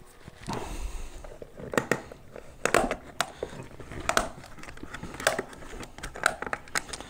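Irregular plastic clicks, knocks and rattles as the old adjustment mechanism is worked loose and pulled out of a VW Golf 2 door mirror housing.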